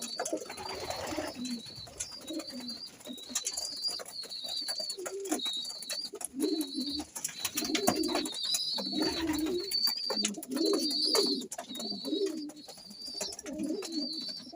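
Domestic pigeons cooing again and again, low warbling calls that grow busier about a third of the way in, over a steady run of short high-pitched chirps and scattered light clicks.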